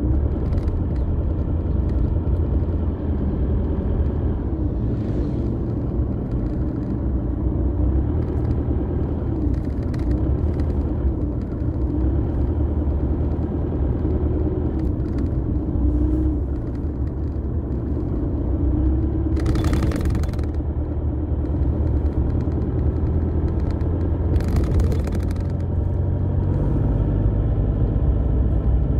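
Car driving on a rural road, heard from inside the cabin: steady engine and road rumble with a wavering engine note. Two brief hissing swells come about two-thirds of the way through and again a few seconds later.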